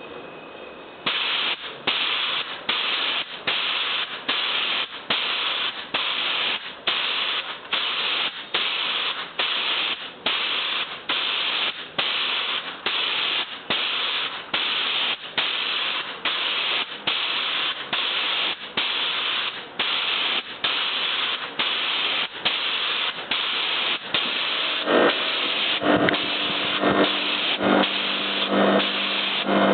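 Compressed air from a home-built air compressor setup hissing in regular pulses, about one and a half a second. From about 25 seconds in, a low pitched hum joins, pulsing in step with the hiss.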